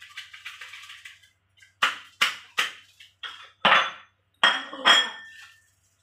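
Plastic tofu tray crinkling, then about eight sharp knocks and clinks of the tray and ceramic dishes on the counter, the last few ringing briefly.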